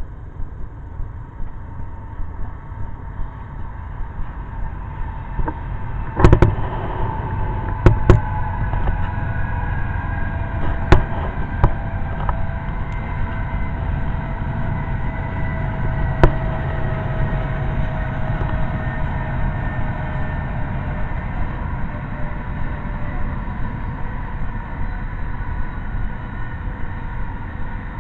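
A diesel-hauled double-stack intermodal freight train passing: a low rumble that builds about six seconds in, with a whine that slowly falls in pitch. A few sharp knocks stand out.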